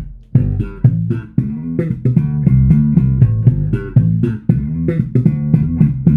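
Electric bass guitar, a Fender Player Precision Bass, played through a Harley Benton Block 800B amp head and a Kustom DeepEnd 4x10 cab, picked up by a mobile phone's microphone. It plays a quick riff of plucked notes, about four a second, moving up and down in pitch.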